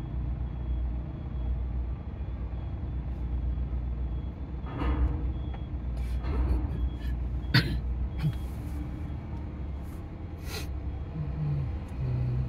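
Diesel engines of cargo-handling vehicles running with a steady low rumble, several loud clanks and knocks in the middle, and a faint repeated high beeping through the first part.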